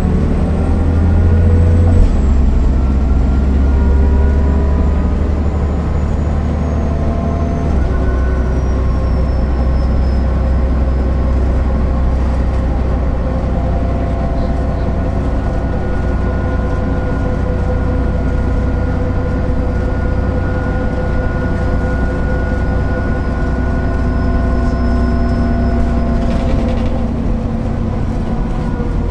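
MAN NL 262 city bus's diesel engine and ZF automatic drivetrain running steadily under way. A thin high whine slides slowly down in pitch over the first ten seconds or so, then holds steady before fading out near the end.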